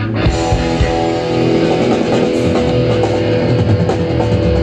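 Loud amplified rock music from a band, with electric guitar and bass guitar to the fore.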